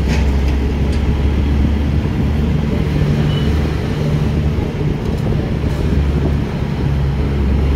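Bus engine and road noise heard from inside the moving bus: a steady low rumble with a hiss over it.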